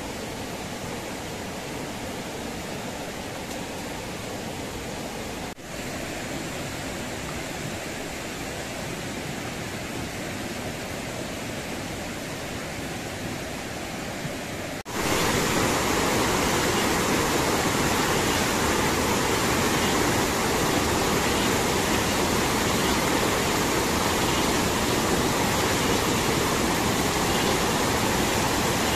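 Steady rush of a flooded, muddy river. About halfway through it jumps louder, to the rush of white-water rapids pouring over rocks.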